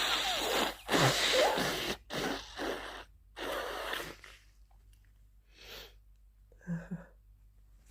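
A person with the flu making congested nose and breath sounds. There are two loud noisy bursts in the first two seconds, each with a brief voiced glide, then a run of shorter bursts, and a short throaty sound near the end.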